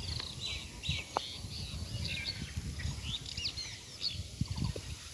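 Several small birds chirping in quick, short calls, scattered throughout, over a low rumble.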